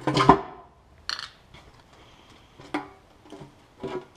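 Metal hand tools clinking and knocking against an Audi 5.2 L V10 engine during removal of the lower oil pan: a loud cluster of clanks at the start, then three single clinks spread over the next few seconds, each with a brief ring.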